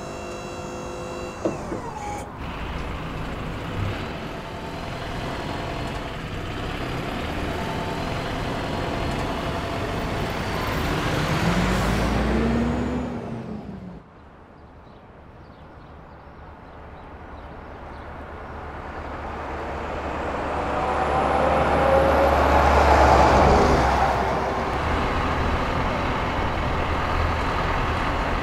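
Truck engine heard in two passages. The first swells to a peak and then cuts off abruptly about halfway through. The second is a Volvo box truck's engine, rising as it climbs the road toward the listener, peaking a little after twenty seconds in and then running steadily.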